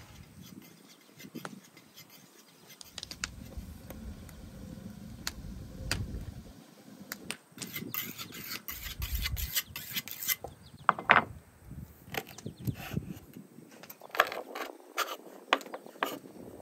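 Steel kitchen knife sharpened on a whetstone with a run of quick scraping strokes. It then cuts through raw chicken joints on a wooden cutting board, with sharp knocks of the blade against the board, the loudest about 11 seconds in.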